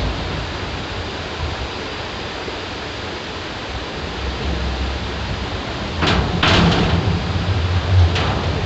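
Loud, steady noise under a bridge, like flowing stream water, with a low rumble and a few sharp clunks about six seconds in and again near eight seconds, like vehicles passing over the bridge deck.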